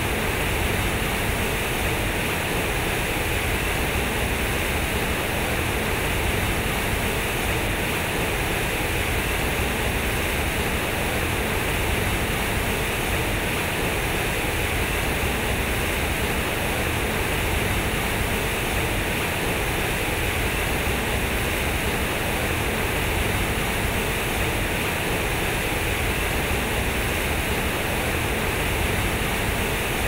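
Water pouring from the square concrete chutes of a large fountain and splashing into its pool: a steady, even rush of falling water.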